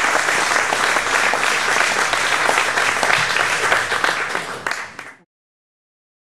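Audience applauding at the end of a song, the clapping fading out about five seconds in.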